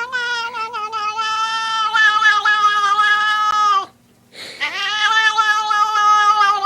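Domestic cat yowling in two long, drawn-out calls, with a brief break about four seconds in.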